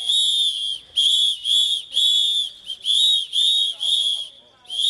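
Protesters blowing pea whistles in a loud run of short, shrill blasts, roughly two a second, some with a warbling trill.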